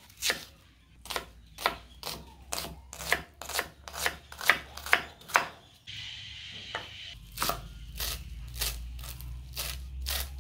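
Chef's knife chopping onion and then cilantro on a wooden cutting board: sharp knocks of the blade on the board, about two to three a second, with a short break about six seconds in.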